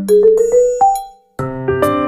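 Background music played on keyboard or electric piano. It thins to a few ringing notes that die away, breaks off briefly just past halfway, then starts again.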